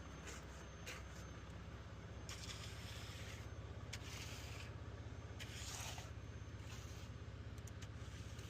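Concrete mixer truck's engine running with a steady low hum, overlaid by three or four short scraping sounds about two, four and five and a half seconds in.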